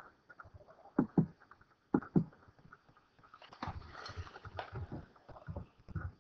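Computer mouse clicking, twice in quick pairs, then a soft rustle.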